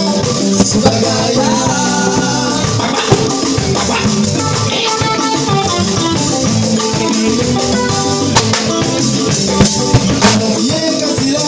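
Live band playing, with congas, drum kit, electric guitar, electric bass and keyboard.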